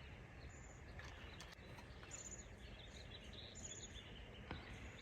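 Quiet outdoor ambience: a faint, high chirp repeats about every second and a half over a low rumble.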